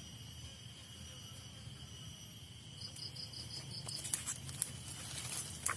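Forest insects: a steady high buzz, with a quick run of chirps lasting about a second near the middle. From about four seconds in, sharp crackles and rustles join.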